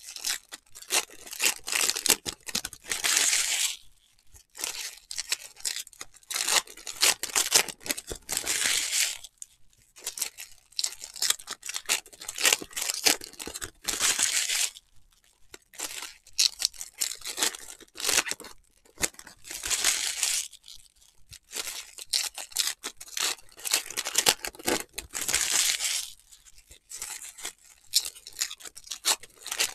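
Trading-card pack wrappers being torn open and crinkled, in bursts every few seconds, with quieter stretches of cards being handled between.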